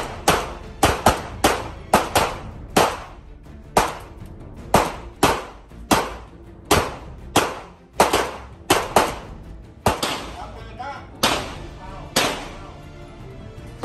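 Handgun shots from two pistols firing at once, about twenty sharp cracks in quick, uneven strings, each with a short ringing tail.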